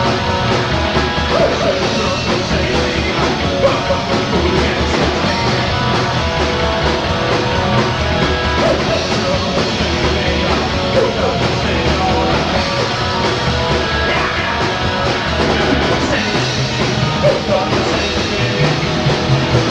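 Rock band playing a fast punk-style rock song: electric guitar, bass and drums, with shouted singing over them.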